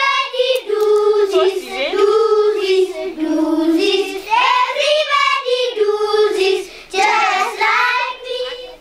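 A class of young children singing an action song together in unison, a clear simple melody, which stops shortly before the end.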